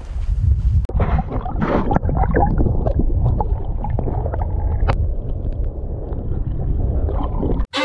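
Shallow surf water sloshing and gurgling around a submerged camera: a muffled, deep rumble with scattered knocks that cuts off suddenly near the end.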